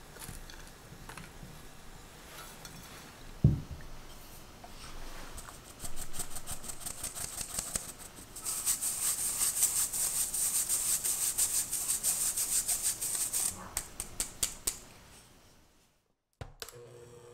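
A fine-mesh metal sieve tapped and shaken to sift powdered sugar into a glass bowl: a long run of rapid light rattling taps with a dry hiss, loudest in the middle, after a single knock about three and a half seconds in. Near the end, after a brief silence, an electric hand mixer starts with a faint steady hum.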